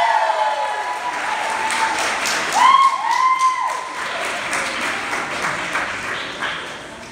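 Audience applauding and cheering, with two loud whoops a little after the middle; the clapping dies down near the end.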